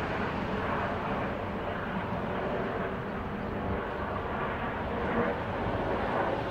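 Airplane flying overhead, a steady engine drone that eases slightly toward the end.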